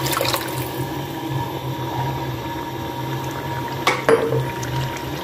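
Water just poured into a pan of chana and mash dal fried in ghee and spices, sizzling and bubbling as a spoon stirs it through. A brief knock, likely the spoon on the pan, about four seconds in.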